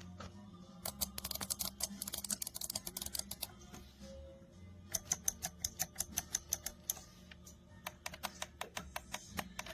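Keys of a Razer Tartarus v2 gaming keypad, with mecha-membrane switches, being pressed in rapid clicking runs of about seven presses a second. There are three runs, separated by short pauses about three and a half seconds in and again around seven seconds in.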